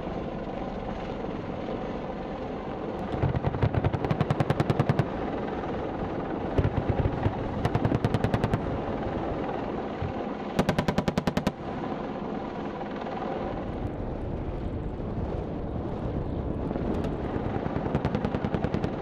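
AH-64 Apache attack helicopter running steadily, broken by four bursts of rapid automatic gunfire at about ten rounds a second. The bursts come about three seconds in, twice more in the middle, and again near the end.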